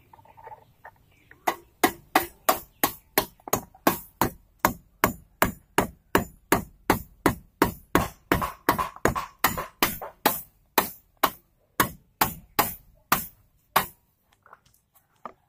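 Rapid, evenly spaced hammering, about three and a half sharp blows a second, at the base of a loose satellite-dish pole set in a brittle masonry wall. It starts about a second and a half in and stops about fourteen seconds in.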